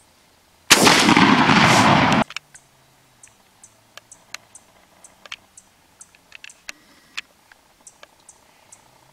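A single shotgun shot at a wild turkey gobbler at long range: one very loud blast about a second in, its roar lasting about a second and a half before it cuts off. Faint scattered clicks and short high chirps follow.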